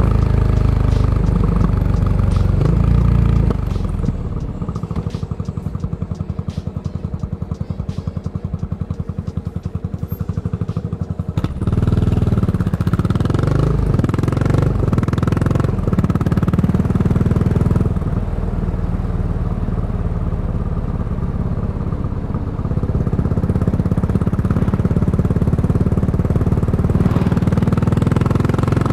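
Yamaha SR400's single-cylinder four-stroke engine running through a Goods Tapered Corn slip-on muffler while riding. The exhaust drops to a quieter, low, even beat for several seconds, then about twelve seconds in it is opened up suddenly, the revs climbing, before settling back to a steady cruise.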